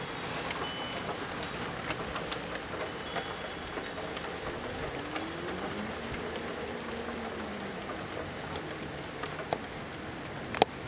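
Steady rain falling, an even hiss of drops on surfaces, with a few sharp ticks near the end.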